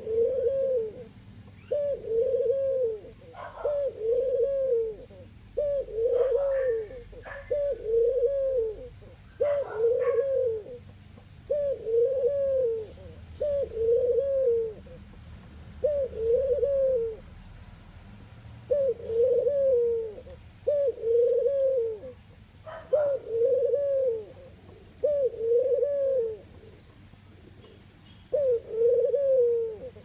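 Ringneck dove cooing over and over: a string of low coos, each about a second long and rising then falling in pitch. There are short pauses about two-thirds of the way through and again near the end.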